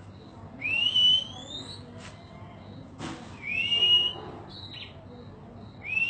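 Caged songbird giving a long, rising whistled note three times, roughly every two and a half seconds. Each note slides upward over about a second.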